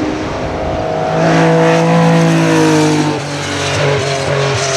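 Hillclimb race car engine under hard acceleration going past, with a short break in the note about three seconds in like a gearshift, then the pitch falls slowly as it draws away.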